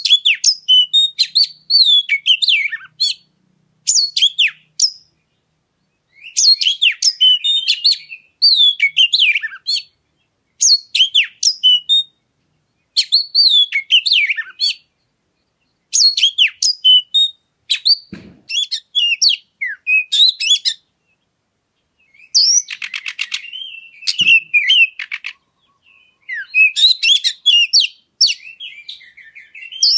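Oriental magpie-robin (kacer) singing loud, varied whistled phrases in bursts of one to two seconds with short pauses between them. About two-thirds of the way through comes a harsh buzzing rattle.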